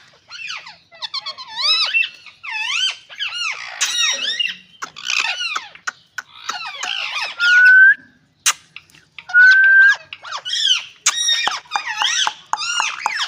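Parrots squawking and chattering in a dense run of short, bending calls, with two longer rising whistles, about eight seconds and ten seconds in, that are the loudest. Near the end the calls turn into a quick series of short chirps.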